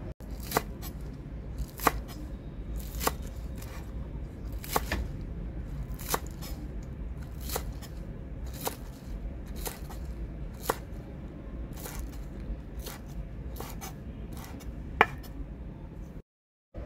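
Food being cut in the kitchen: a sharp snip or click about once a second, over a steady low rumble.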